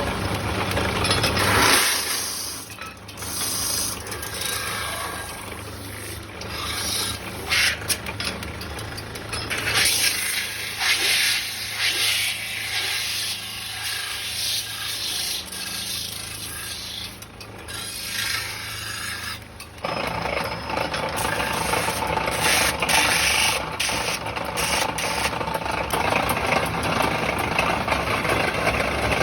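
Sheet metal being spun on a lathe, with a tool scraping and rubbing hard against the turning metal in uneven strokes. The lathe motor's low hum drops out about two seconds in and comes back a little past two-thirds of the way through.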